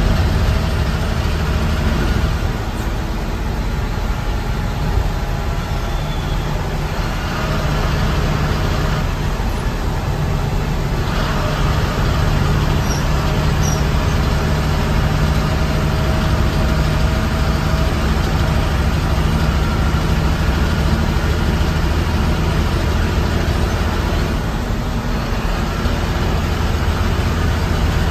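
AC sleeper coach cruising on a highway, heard from inside the bus: a steady low engine drone with tyre and road noise.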